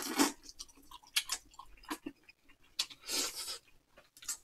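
Ramen noodles being slurped, once at the start and again about three seconds in, with chewing and small clicks between.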